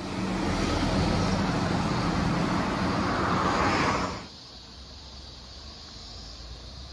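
A motor vehicle passing close on the street, with steady tyre and engine noise that grows stronger, then cuts off abruptly about four seconds in. A much quieter outdoor background follows.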